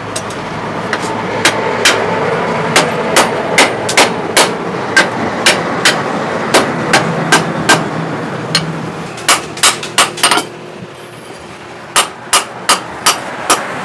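Hand hammer striking a steel adze blade held in tongs on an anvil: sharp metal-on-metal blows at an even pace of about two to three a second. There is a break of about a second and a half near the end, then the hammering resumes.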